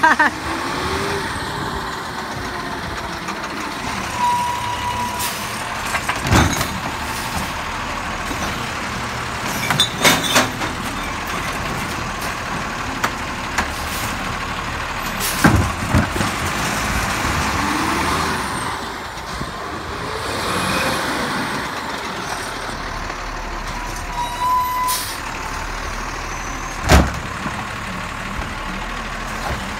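Automated side-loader garbage truck running as its hydraulic grabber arm works a wheeled recycling cart, with several sharp clanks and a short electronic beep twice.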